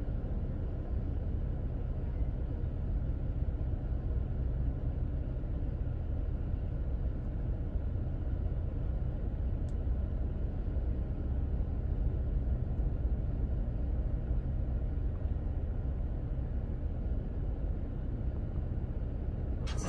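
Steady low rumble of a car's engine idling with the air conditioning running, heard from inside the cabin.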